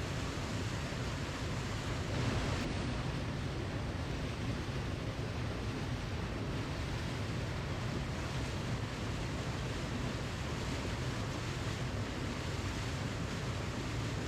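Waterfall: a steady, unbroken rush of falling water, swelling slightly for a moment about two seconds in.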